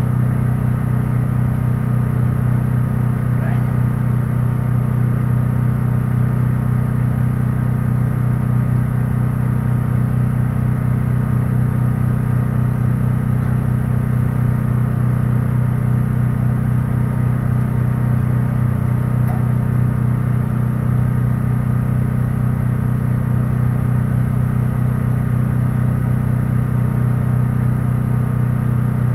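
An engine idling steadily: a constant low drone that holds one speed, with no revving.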